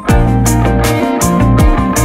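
Smooth jazz instrumental track with a steady drum beat, deep kick-drum hits and sustained bass and chord notes.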